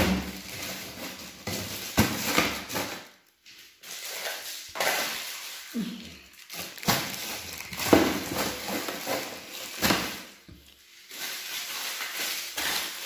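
Plastic bags of meat rustling and crinkling as they are handled and packed into a freezer drawer, with a few sharp knocks of the bags against the plastic drawer.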